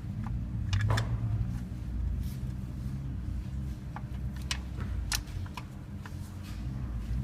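A few short, sharp metallic clicks and taps, spaced irregularly over a steady low hum: tools and metal engine parts being handled during engine reassembly.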